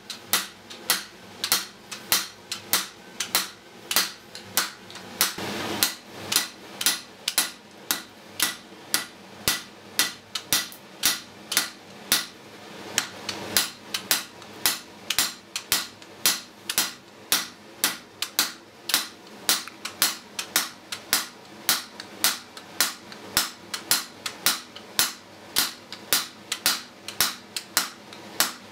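A hand hammer strikes red-hot iron on an anvil in a steady rhythm of about two to three blows a second, with two short breaks. The hot iron is being flattened into a leaf shape.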